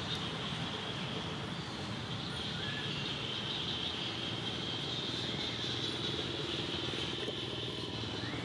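Steady outdoor background noise: a continuous high-pitched buzz over a low rumble, unchanging throughout.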